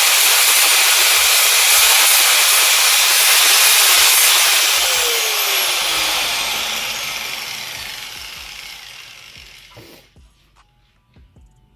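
Handheld power grinder working on steel, switched off about four to five seconds in and spinning down, its whine falling in pitch and fading over several seconds.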